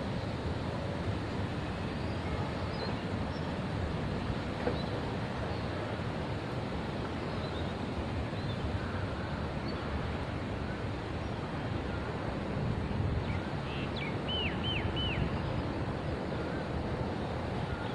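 Steady wind noise on the microphone, with faint distant birds chirping. About three-quarters of the way through, a bird gives a quick run of four short high chirps.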